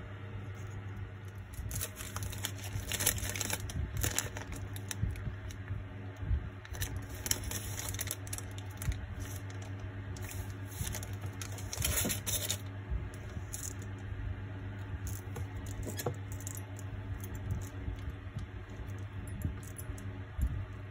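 Hands at a modelling workbench: tissue paper rubbing and crinkling in irregular rustling spells, and small plastic parts and tools clicking as they are handled, over a steady low hum.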